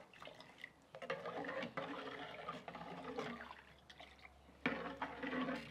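Milk being poured into a clay pot of dissolved piloncillo syrup, with a knock about four and a half seconds in.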